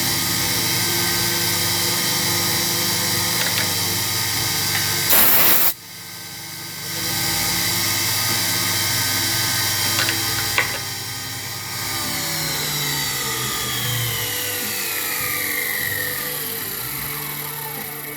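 Sherline milling machine's spindle running at high speed with a steady whine, with a loud half-second burst of noise about five seconds in. In the second half several tones slide steadily down in pitch as the spindle slows.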